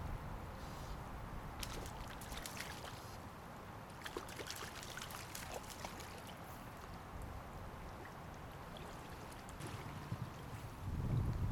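A hooked fish splashing at the surface of the river, in two spells of crackling splashes, over flowing water. Wind buffets the microphone with a low rumble that grows loud near the end.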